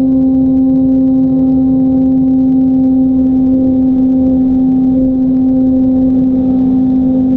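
RC airplane's motor and propeller running at a steady throttle, a loud even hum holding one pitch, with wind rumbling on the onboard microphone underneath.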